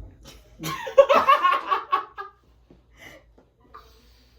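A burst of laughter lasting about a second and a half, starting just under a second in, followed by a couple of faint short sounds.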